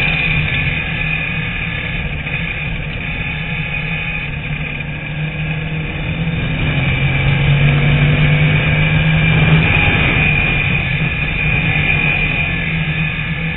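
Onboard sound of a TVR Tuscan Challenge race car's engine running hard at racing speed, a steady drone that gets louder from about seven seconds in and eases back after about ten seconds.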